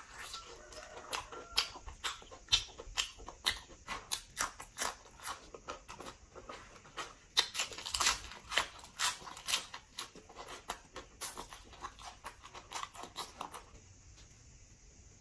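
Close-miked eating: biting into and chewing pork leg and fresh lettuce, a fast, uneven run of sharp mouth clicks and crunches that dies away about 14 seconds in.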